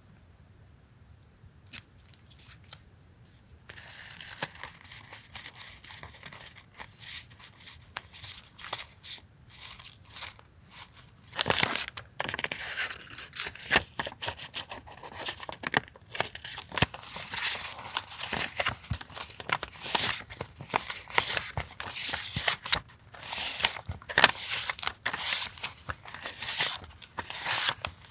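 Paper and plastic packaging being handled and unwrapped: continuous rustling and crinkling with many sharp clicks and taps. It starts a few seconds in and gets louder about halfway through.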